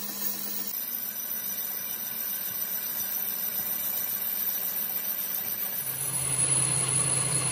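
Metal lathe running, spinning a tractor brake disc while the tool bit skims its face to resurface it: a steady motor hum under the hiss of the cut. The hum shifts to a lower pitch near the end.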